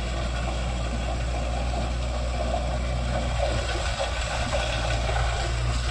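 Kubota L5018 diesel tractor running steadily under load as its rotary tiller churns dry soil, the tiller driven off the PTO at 540 rpm.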